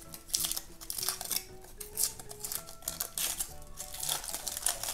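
Soft background music with a simple melody of short notes, under scattered clicks and rustles of packaging and toys being handled.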